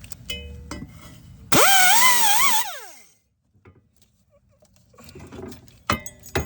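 Harbor Freight 3-inch long-neck air angle grinder run in one burst of about a second to cut a rubber rack-and-pinion boot. It is a high whine over a loud hiss of air, rising as it spins up and wavering as the wheel bites, then winding down when the trigger is released. A few light clicks come before and after it.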